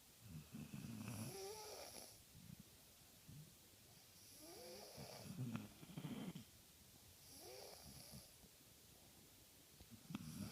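A sleeping boy and his dog snoring, a snore about every three seconds, some breaths carrying a thin whistling tone that wavers up and down in pitch.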